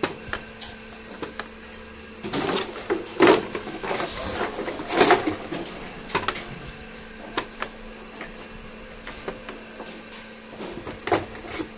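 Metal valves handled by gloved hands at an inkjet marking machine, clinking and knocking as they are picked up, turned and set down, loudest between about two and five and a half seconds in. A steady machine hum with a faint high whine runs underneath.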